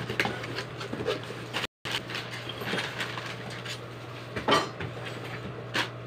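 A cardboard box and its foam packing being opened and handled: rustling and scraping with a few sharp knocks, over a steady low hum.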